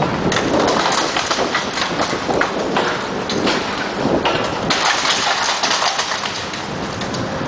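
Bricks and rubble clattering and thudding down as a brick wall is knocked in by a demolition machine, in a dense run of irregular knocks.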